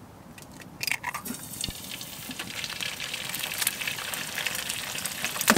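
An egg frying in hot oil in a frying pan. Sizzling and spitting start about a second in and grow steadily louder, with a sharp knock near the end.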